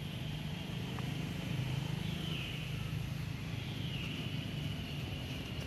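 Steady low hum of an engine running in the background, with a faint high whine above it.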